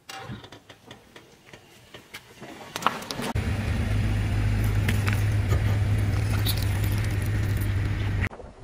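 A car engine running steadily close by, a low drone, with a few small pops and crackles under the tyre. For the first three seconds or so it is quieter, with only faint crackles, before the drone comes in.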